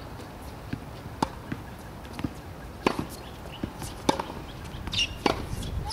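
A handful of separate sharp knocks from a tennis ball bouncing on a hard court and being struck by a racket.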